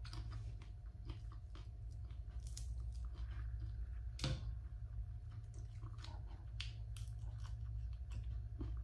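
A person chewing and biting roast meat eaten by hand: a run of small, irregular mouth clicks and crunches, with one louder crunch about four seconds in. A steady low hum runs underneath.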